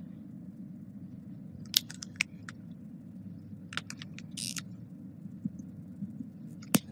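Marker pen writing on a whiteboard: short scratchy strokes and clicks of the tip on the board, in small clusters, with one sharp tap near the end, over a steady low room hum.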